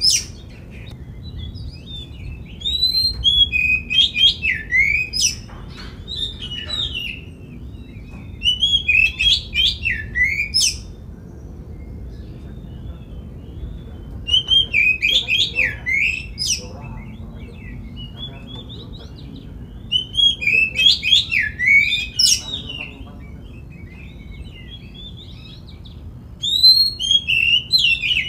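Oriental magpie-robin (kacer) singing: loud bursts of rapid, varied whistled phrases, about five bursts a few seconds apart.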